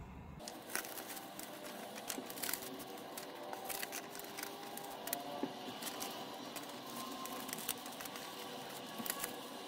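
Sheets of white paper being handled and folded into zigzags: soft rustling with many small, irregular crinkles and clicks as the creases are pressed.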